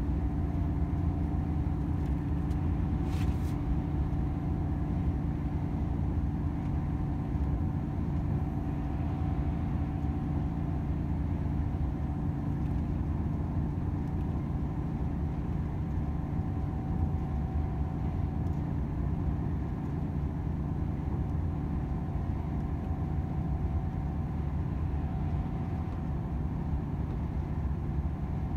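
Volvo FH 500 truck's 13-litre six-cylinder diesel running steadily while driving, with a constant low rumble of engine and road noise. A brief click about three seconds in.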